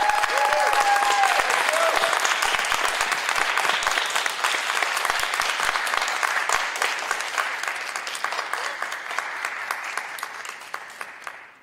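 An audience applauding, dense clapping that dies away gradually near the end, with a brief voice calling out at the start.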